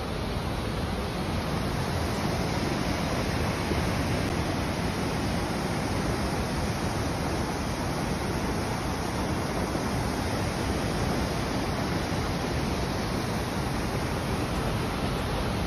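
Fast, muddy floodwater rushing over rocks and rubble: a steady, even rush of water.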